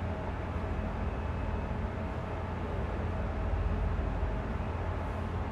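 Steady low hum with a faint even hiss of background room noise, with no speech.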